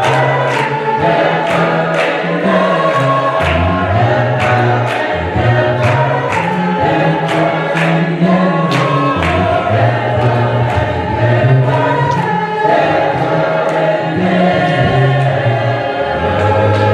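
Gospel choir singing with a band, over a bass line and a steady percussion beat.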